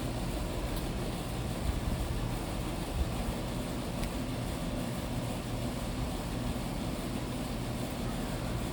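Steady low rumble and hiss of outdoor background noise with a faint even hum through it.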